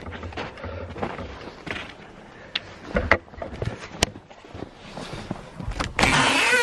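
Boots crunching through deep snow, with a low wind rumble on the microphone. Near the end a loud, sustained scraping starts as snow and ice are cleared from the wooden coop door to work it open.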